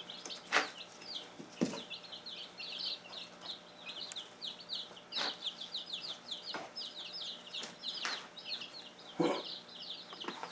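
A flock of young chicks peeping without pause, a dense run of short, high, falling chirps. A few scattered knocks sound over them.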